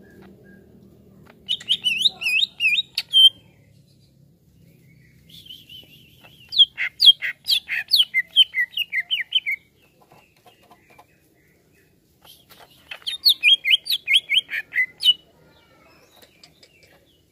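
Greater green leafbird (cucak ijo) singing three phrases of quick falling notes, about four a second, each phrase a couple of seconds long with short pauses between.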